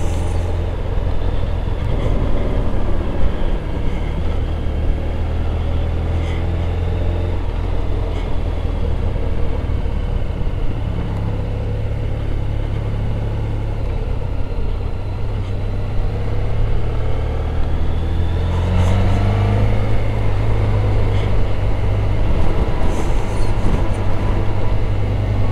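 Motorcycle engine running while ridden, steady for most of the time, its note rising as it speeds up about nineteen seconds in.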